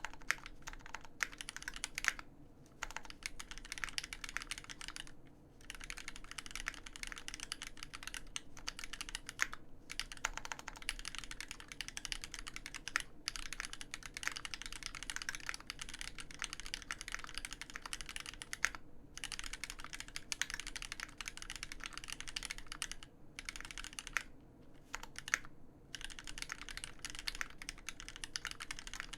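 Fast continuous typing on a custom mechanical keyboard: an Alpine65 case with a brass plate, lubed Marshmallow linear switches and GMK keycaps, giving dense rapid keystroke clacks with a few brief pauses.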